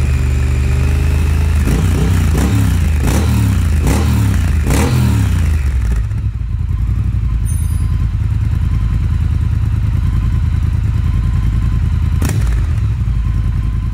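Triumph Thruxton R's 1200 cc parallel-twin engine revved in a series of quick throttle blips through the exhaust, then settling to a steady idle. Near the end a single sharp click sounds over the idle.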